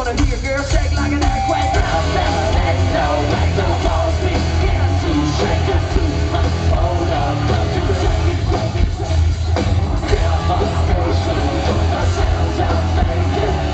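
Live rock band playing loud and without a break: electric guitars and drums under a heavy bass, with a sung and yelled lead vocal.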